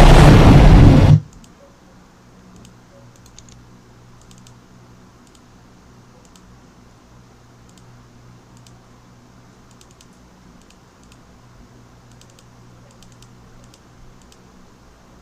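A very loud, distorted blast of effect-processed audio cuts off suddenly about a second in. Then faint, irregular clicks of a computer keyboard and mouse sound over a low steady electrical hum.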